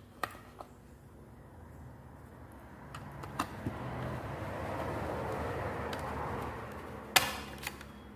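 An old TV set-top box being pried open after its screws are out: a few light clicks of the casing, a drawn-out scraping as the cover is worked loose, and a sharp click about seven seconds in.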